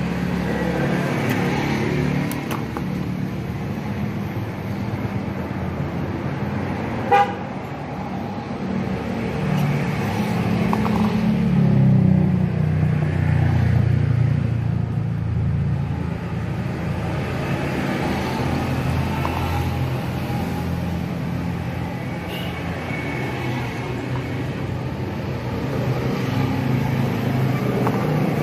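Road vehicle engine running nearby, a steady low hum that swells and fades around the middle, with one sharp click about seven seconds in.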